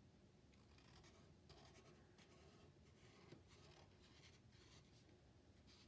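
Faint scratching of a black marker tip on paper in a series of short strokes.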